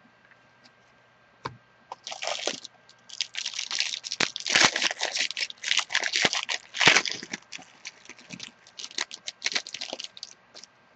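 A trading-card wrapper crinkling and tearing in quick irregular crackles, starting about two seconds in and stopping shortly before the end.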